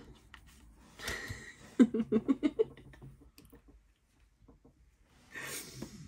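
A breathy exhale, then a short pulsed laugh about two seconds in, with faint taps of trading cards being handled and laid on the table; another breathy exhale near the end.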